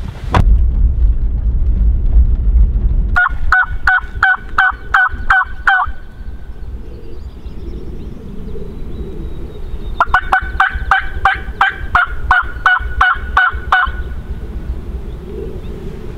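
Two runs of rapid, harsh crow caws, about three a second, the first lasting about three seconds and the second about four, with a low rumble in the first few seconds.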